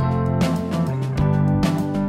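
Background music, a track with strummed guitar chords.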